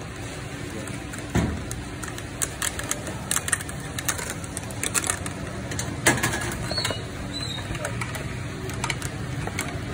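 Metal kebab skewers clicking and clinking against one another and the grill edge as they are turned over a charcoal grill. There are a dozen or so sharp clicks, irregularly spaced, over a steady low background hum.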